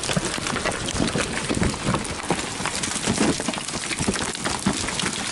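A dense, steady patter of many small hits over a noisy hiss, like heavy precipitation striking a surface.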